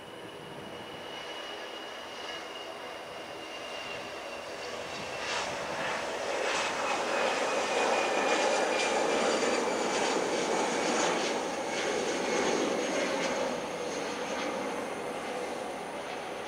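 Airbus A320 jet engines at take-off thrust through the take-off roll, lift-off and initial climb: a steady roar with a high whine that slides slowly down in pitch. It grows louder to a peak about halfway through, then eases off near the end as the jet climbs away.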